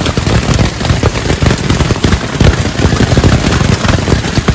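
Hailstones pelting a nylon tent: a loud, dense, rapid drumming of impacts that goes on without a break, heard from inside the tent.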